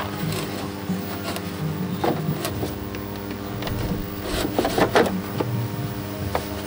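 Plastic back cover of a CRT television being handled and fitted into place: scattered knocks and scrapes of plastic, busiest about four to five seconds in, over a steady low hum.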